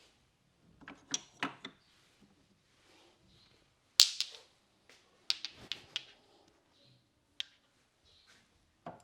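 Sharp slaps and pops from a barber's hands working a man's head and neck during a head massage, in short irregular clusters, the loudest about four seconds in.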